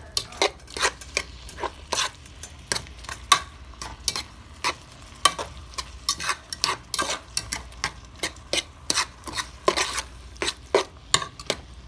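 A metal utensil stirring pasta in cheese sauce in a nonstick skillet, scraping and tapping against the pan in irregular strokes, two or three a second, over a faint sizzle.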